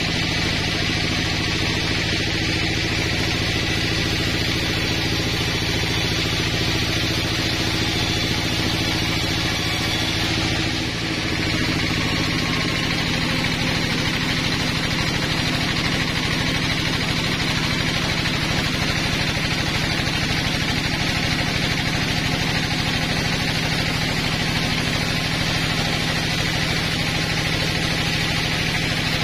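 HAITA band sawmill running steadily and sawing lengthwise through a pine log: a constant machine hum under a hissing cut, with a brief dip in the sound about eleven seconds in.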